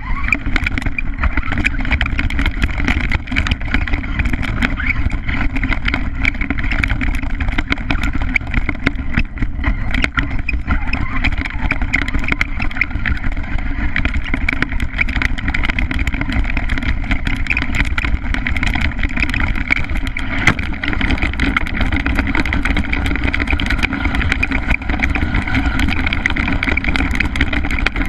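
Small motor of a Redcat Racing RC stadium truck running steadily, heard from a camera mounted on the truck, with many short knocks and rattles as it drives over rough ground.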